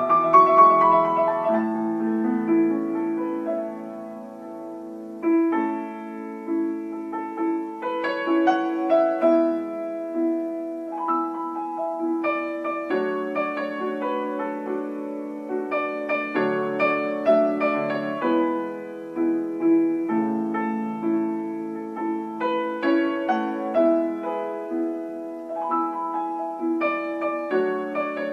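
Solo piano music: a slow melody of single struck notes over held chords.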